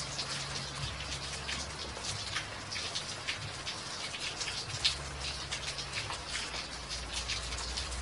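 Steady rain falling on a wet walkway and its puddles: an even hiss dotted with many close, separate drop splats.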